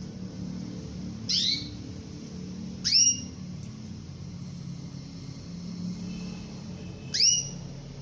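Female domestic canary giving three short sweeping call notes, spaced unevenly over a few seconds: the call a hen uses to summon a male. A steady low hum runs underneath.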